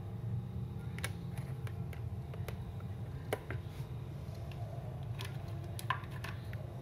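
A few light plastic clicks and taps as a digital photo frame is handled and stood upright on its stand, over a steady low hum.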